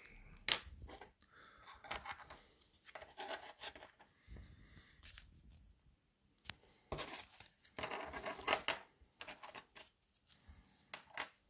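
3D-printed plastic speaker rings handled and set down on a tabletop: faint scattered clicks, taps and scraping.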